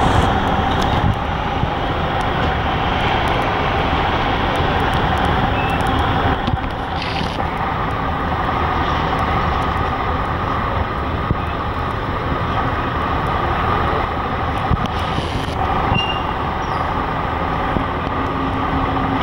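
High-speed passenger catamaran's engines running as it manoeuvres into harbour: a steady drone with a whine on top, the whine shifting in pitch about a third of the way in and again near the end.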